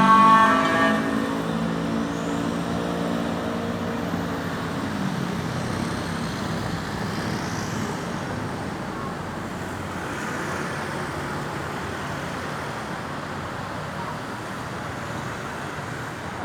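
Steady road traffic noise from passing vehicles, slowly getting quieter. In the first second an emergency vehicle's siren tone dies away.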